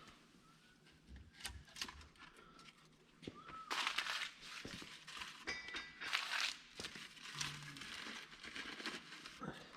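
Crinkling, rustling and scattered knocks of a wood fire being laid and lit, with louder bursts of rustling about four and six seconds in.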